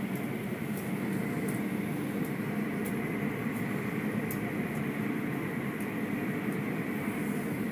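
Automatic car wash machinery running, heard from inside the car: a steady motor hum with the hiss of water spray, and faint irregular ticks as the cloth curtain strips and droplets hit the car.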